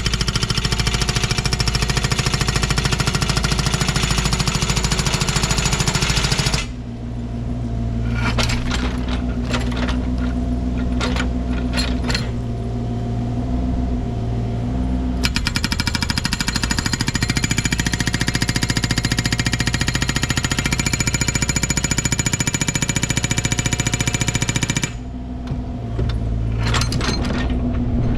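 Hydraulic hammer on a Bobcat mini excavator breaking granite ledge in fast, continuous blows. It stops about six seconds in, leaving the excavator's engine running with a few knocks, then hammers again for about ten seconds and pauses briefly near the end.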